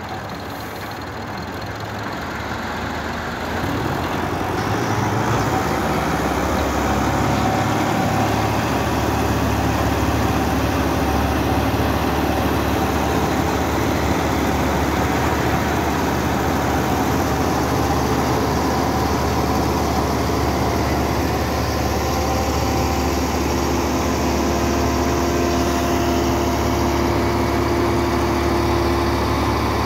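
Engine of a trailer-mounted double-press hay baler running steadily, picking up in level about four seconds in and holding there as the press works, with a thin steady whine coming in over the later part.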